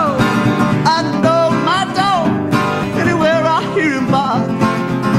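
Solo acoustic blues on a steel-string acoustic guitar. A melody line bends and wavers in pitch over steady strummed and picked accompaniment.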